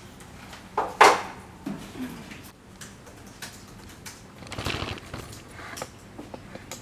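Plastic knocks and clatter from handling an air purifier's filter housing and filters during filter removal. There is a sharp knock about a second in and a longer scraping rustle near five seconds.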